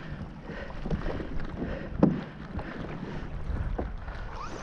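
Small waves slapping against a plastic Hobie Outback kayak hull, with wind buffeting the microphone. There is a dull thump about two seconds in, the loudest sound here.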